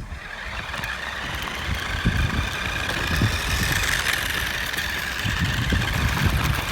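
Toy remote-control car driving, heard from a camera riding on it: a steady motor whine over an uneven rumble from the wheels on the ground, starting suddenly as the car sets off.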